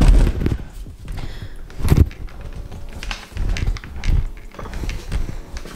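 Handling noise: a few dull knocks and thumps, the loudest about two seconds in, with light clicks and rustling between them.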